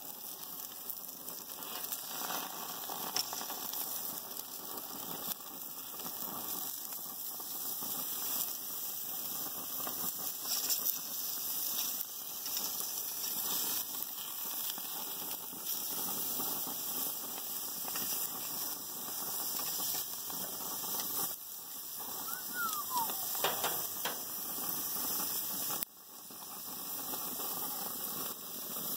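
Steaks sizzling on a gas grill, a steady crackling hiss full of small pops. About two-thirds through there is a short falling squeak.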